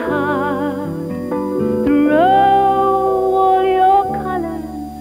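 Pop song playing: a lead melody line with wide vibrato slides up about two seconds in and holds a long note, over plucked guitar and a steady bass.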